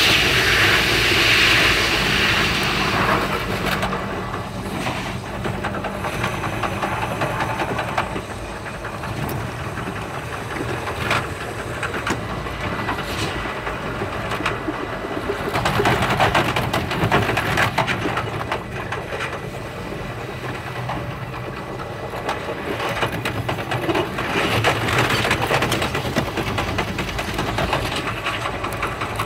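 Running noise of a Thunderbird limited express train heard from inside the carriage, sped up five and a half times. It is loudest and most hissing at the start, then settles lower, and swells again about halfway through and once more later on.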